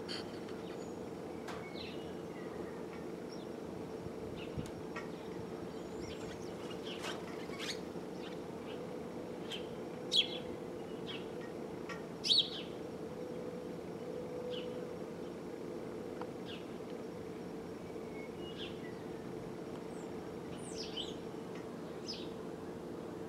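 Small birds chirping: short, high calls scattered throughout, with two louder ones about ten and twelve seconds in, over a steady low hum.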